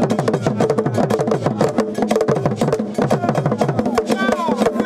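Drum-led music: a fast, even run of sharp wooden clicks over pitched drum strokes that slide down in pitch.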